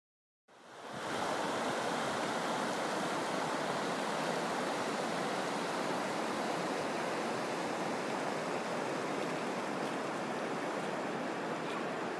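Snowmelt floodwater running over open ground, a steady rushing that fades in about half a second in.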